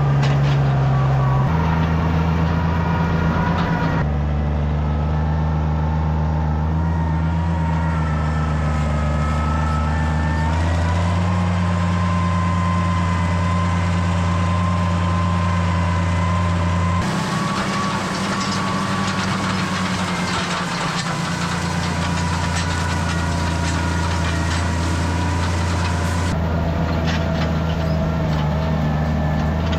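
Oliver tractor engine running steadily while pulling a hay rake through corn stalks, its pitch and tone shifting abruptly every few seconds.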